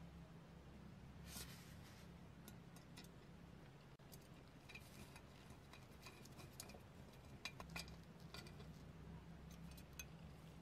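Near silence with a low steady hum and faint, scattered clicks and light taps of small hard parts being handled, a few of them bunched together about three-quarters of the way through.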